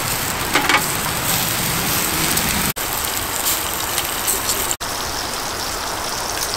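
Steady rain falling, a continuous even hiss that cuts out for an instant twice.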